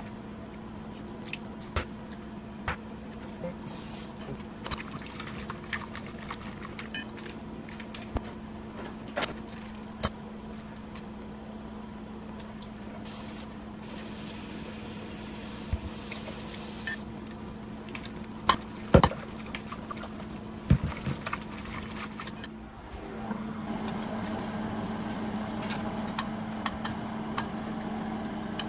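A steady hum with scattered clicks and knocks of handling, a few seconds of hiss about halfway through, and two sharp knocks later on. Near the end a fuller, louder whir sets in.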